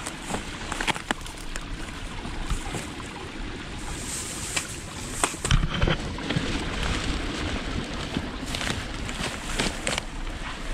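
Small forest stream running and trickling steadily, with a few sharp clicks and a heavier thump about five and a half seconds in.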